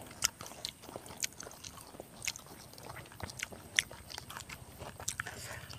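A person quietly chewing a mouthful of rice and chili-fried eel, with soft, irregular wet mouth clicks.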